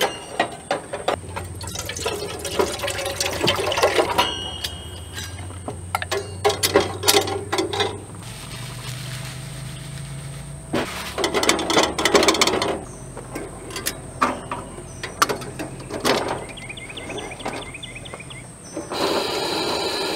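Coffee being made in an aluminum camp coffee pot: a metal spoon scraping and clinking against the pot as grounds are scooped in, a bag rustling as more is poured, and pouring into the pot. Near the end a steady hiss begins as the gas stove burner under the pot is lit.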